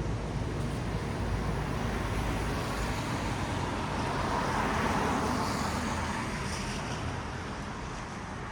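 Traffic on a wet road: a vehicle's tyres hiss past on the wet surface, swelling to a peak about halfway and fading away, over a low steady rumble of traffic.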